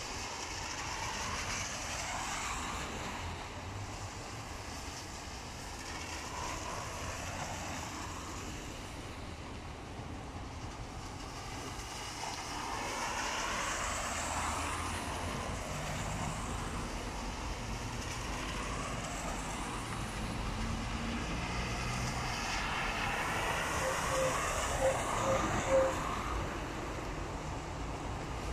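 Cars passing on a rain-soaked road, their tyres hissing through standing water, over a steady wash of rain and wind. Near the end come four short beeps.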